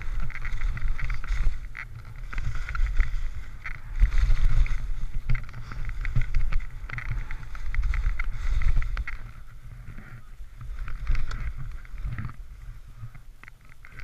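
Skis hissing and scraping over fresh snow on a downhill run, with wind rumbling on the microphone. The sound swells and fades in waves and grows lighter about nine seconds in.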